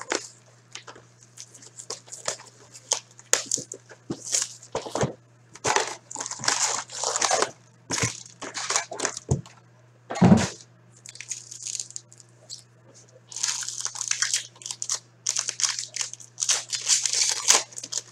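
Plastic shrink wrap and foil trading-card packs from a Fleer Showcase hockey box crinkling and rustling in irregular bursts as they are handled. There is one sharp knock about ten seconds in.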